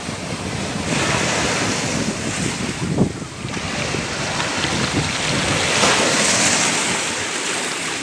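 Sea waves breaking and washing up the shore: a steady rushing surf that swells about a second in and again around six seconds, with a brief louder splash about three seconds in.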